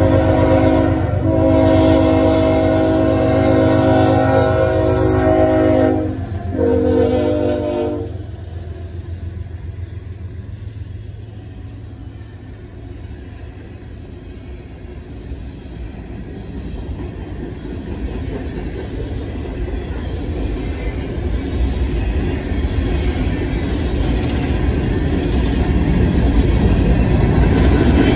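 CSX freight locomotives sound their air horn in long blasts for a grade crossing, with brief breaks about a second in and about six seconds in, the last blast ending about eight seconds in. Then the coal train's hopper cars rumble and clatter past on the rails, growing louder toward the end.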